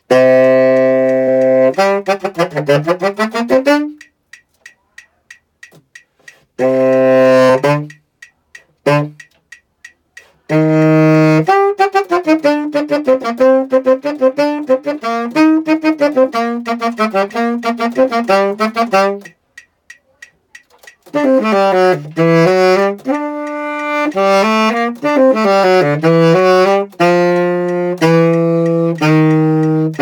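Tenor saxophone playing a melody in phrases, with pauses of a second or two between them, ending on a long held low note.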